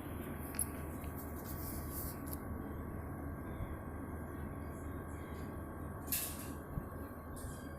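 Mustard seeds in hot oil in a frying pan, a few scattered pops and crackles over a steady low background noise.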